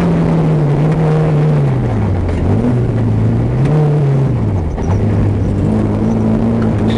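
Vehicle engine running while driving, heard from inside the vehicle. Its pitch sinks about two seconds in, climbs again, sinks once more around five seconds, then holds steady, over a constant rumble of tyres on a dirt road.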